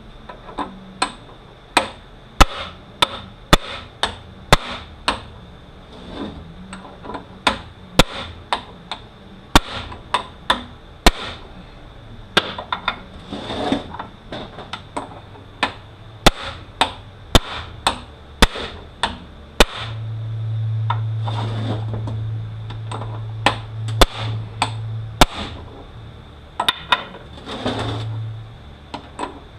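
Repeated sharp hammer blows on a bushing driver, about one or two a second, driving a planetary gear set out of a Toyota U760E automatic transaxle. A low steady hum comes in about two-thirds of the way through.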